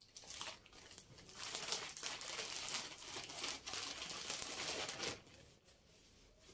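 Crinkly material being handled by hand, rustling and crackling for about five seconds, then stopping suddenly and leaving a faint rustle.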